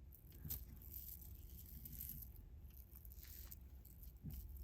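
Faint handling noise as the tourmaline beads are moved about: a few light clicks and scrapes over a low steady hum.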